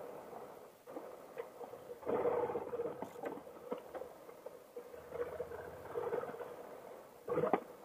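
Honda NC700XD's parallel-twin engine running as the bike is ridden over a dirt trail, swelling louder twice, with scattered knocks and rattles from the bumps; the sharpest knock comes near the end.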